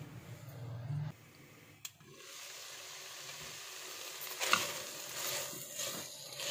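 Small pieces of boneless chicken sizzling in a pan over a low flame, their cooking liquid dried off. A spatula scrapes and stirs through them from about halfway in.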